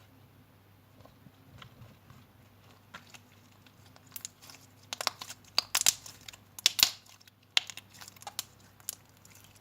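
Stiff, glossy green slime being pulled and squeezed by hand, giving sticky crackles and sharp pops; quiet at first, the pops come in clusters from about four seconds in. It stretches only with great effort.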